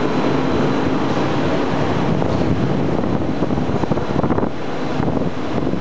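Stadtbahn tram running along the platform of an underground station, a steady noise of wheels on rails.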